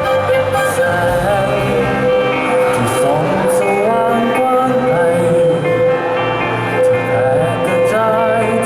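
A band playing a song, with a singer's voice wavering over steady held instrument notes.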